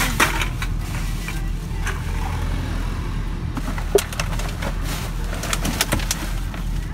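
Plastic bags of recyclables rustling, with a few short knocks as they are handled, the sharpest about four seconds in, over a steady low hum.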